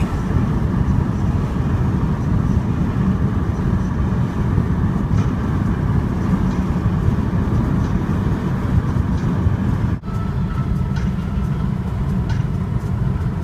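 Steady low rumble of a car on the move, road and engine noise, broken briefly about ten seconds in.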